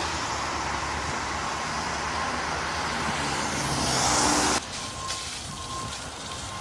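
Road traffic on a wet road, with tyres hissing and engines running. It cuts off abruptly near the end to a quieter hiss with a short high beep repeating about twice a second.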